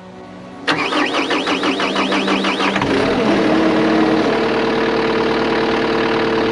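Dodge Ram 3500's Cummins straight-six diesel being cranked by its starter, pulsing about four times a second, then catching about three seconds in and settling into a steady idle.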